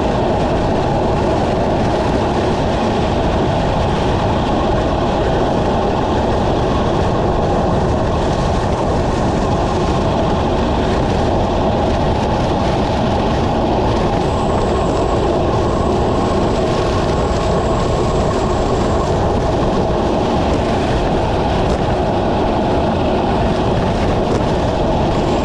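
Steady, loud rush of wind and road noise on the microphone of a camera riding along at race speed in a road cycling race.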